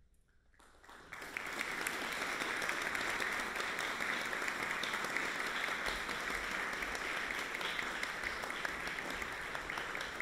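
Brief near silence, then an audience breaks into applause about a second in and keeps clapping steadily.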